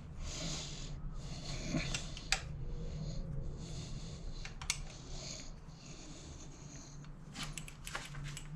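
Sharp metal clicks of a T-bar Allen key working at the screw of a Brompton's hinge pin, a few scattered and then a cluster near the end, with breathing of effort between them; the screw is not coming out.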